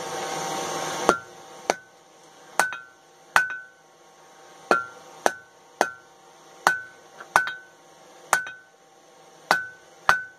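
Hand hammer striking red-hot 1-by-¼-inch flat steel bar on an anvil: about a dozen blows at an uneven pace of roughly one a second, each with a short ring, as the bar is drawn out. A hiss rises through the first second and cuts off at the first blow.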